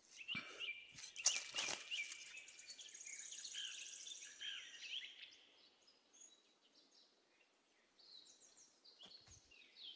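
Small birds chirping and trilling, on and off. In the first two seconds a few sharp crackles as a knife cuts a mushroom stem free from dry heather and grass.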